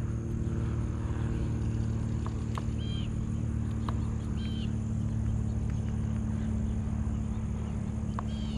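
Steady low mechanical hum, with a few short bird chirps about three seconds in, at four and a half seconds, and near the end.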